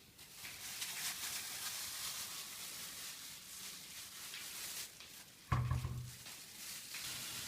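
Ground beef sizzling steadily in a frying pan, with a brief loud low sound about five and a half seconds in.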